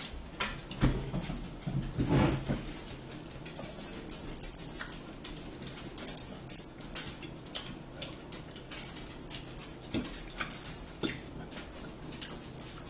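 Forks clicking and scraping on plates with the small sounds of eating, many short sharp clicks scattered through, and a dog whimpering now and then.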